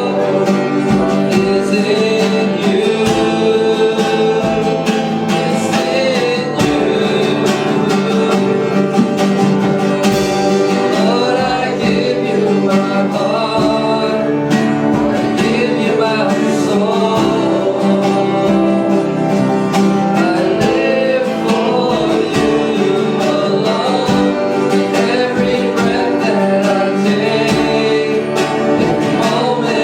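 Live worship music: a guitar-led band playing steadily, with singing over it.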